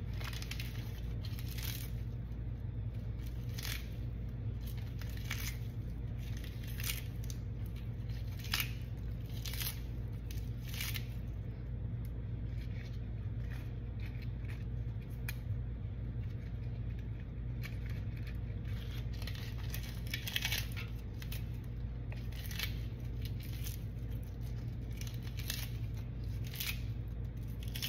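Lettuce leaves being torn apart by hand: irregular crisp rips and snaps, roughly one every second, with a quieter stretch midway. A steady low hum runs underneath.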